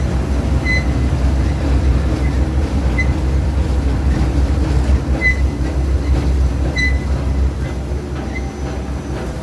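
Industrial waste-textile shredding line running under load: a steady, heavy low rumble, with short high squeaks now and then.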